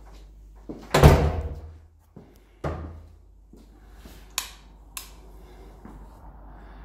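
An interior door thuds loudly about a second in, followed by a softer knock and two sharp clicks.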